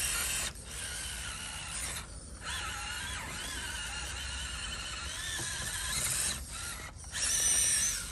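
Electric motor and geared drivetrain of a 1/10-scale Losi Night Crawler SE rock crawler whining under load as it climbs, the pitch wavering with the throttle. It cuts out briefly a few times and is loudest just before the end.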